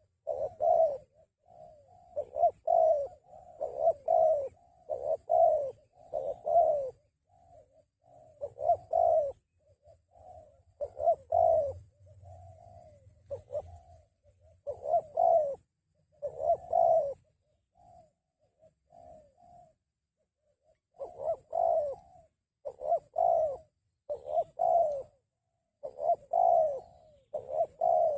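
Spotted doves cooing, one phrase after another with short pauses, with a softer, sparser stretch about two-thirds of the way through.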